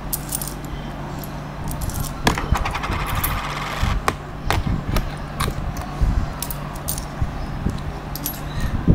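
Metal coins clinking and jingling as they are handled, in many sharp separate clicks with a denser run of jingling about two to four seconds in.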